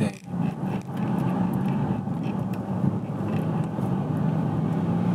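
Car running and moving slowly, heard from inside the cabin: a steady hum with road noise, dipping briefly near the start.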